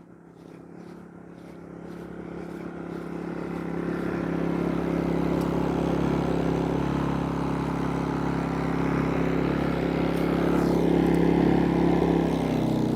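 GenMax GM2000i 2000-watt inverter generator running steadily with eco mode off. It grows louder over the first four seconds, then holds a steady note.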